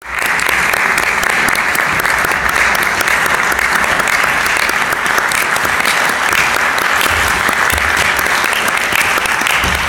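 Audience applauding steadily in a concert hall as the performers walk on.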